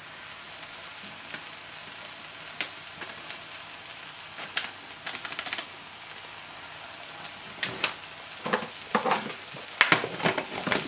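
Sliced mushrooms and onions sizzling gently in an enamelled pot, with a few light taps and rustles as garlic powder is shaken in from its packet. For the last few seconds a wooden spoon scrapes and knocks against the pot as the pan is stirred.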